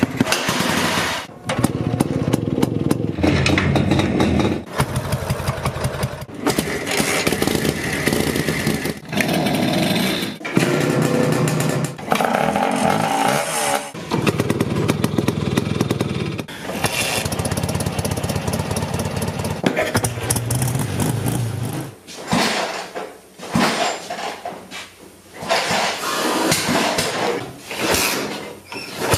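A quick succession of short clips of motorcycle engines starting and running, the sound changing abruptly at each cut.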